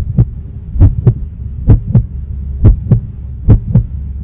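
Heartbeat sound effect: paired lub-dub thumps repeating a little under once a second over a steady low drone.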